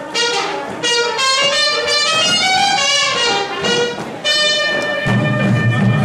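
Swing-era big-band music led by brass phrases in short, sharply attacked notes, with a low pulsing beat joining about five seconds in.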